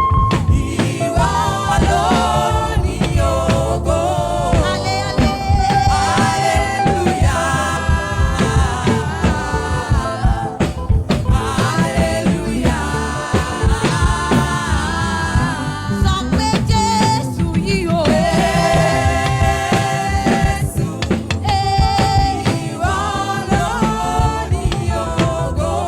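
Gospel praise music: a singer's voice in phrases over a full band with a steady drum beat.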